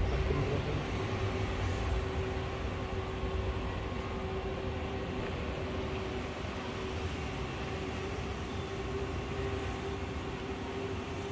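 Steady mechanical room hum: an even drone with a constant tone, a little heavier in the low end for the first couple of seconds.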